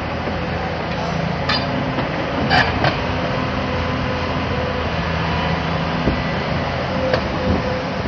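Hyundai Robex 300LC crawler excavator running steadily while its boom, arm and bucket move and the upper structure swings. A few sharp metallic clanks come from the working equipment, two about a second and a half to three seconds in and one near the end.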